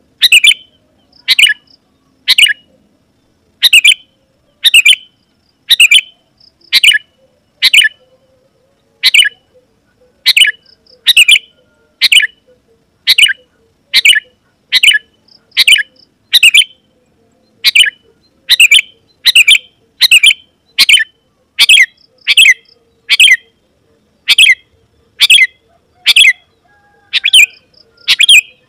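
Sooty-headed bulbul (kutilang) calling in full voice, a short, loud call repeated about once a second, over and over.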